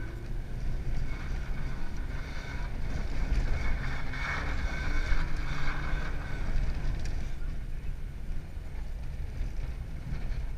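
A car engine running under load inside the cabin, with continuous tyre-on-ice and wind noise as the car slides sideways on a frozen lake. The noise swells and eases again a few seconds in.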